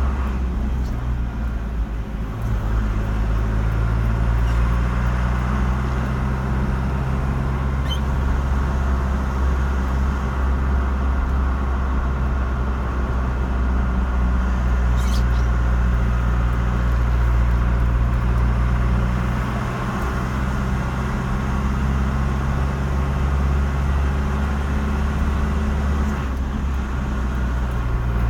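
A car being driven on a road: a steady low engine drone with tyre and road noise. The drone shifts in pitch a couple of times as the engine speed changes.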